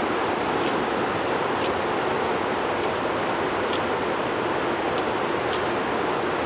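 Kitchen knife slicing through scallion held in the hand, a crisp snip about once a second. Under it runs a steady rushing background noise, louder than the cuts.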